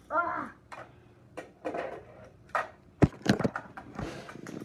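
Tech Deck fingerboard clicking and clacking against a plastic ramp and tile floor: a run of sharp knocks as the board is flicked, flipped and lands, with the loudest cluster about three seconds in.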